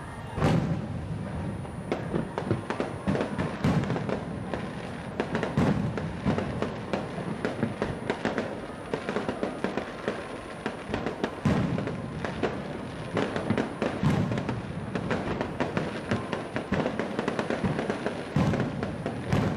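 Aerial fireworks display: many shells bursting in quick, irregular succession, heavier booms about every second or two with crackling in between.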